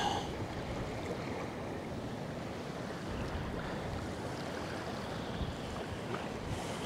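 Steady wind with small lake waves lapping against the shore.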